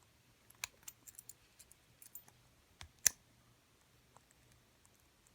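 Small metal clicks from a little lever lock's mechanism as the key is worked and the lever and locking pawl move, with a louder click about three seconds in.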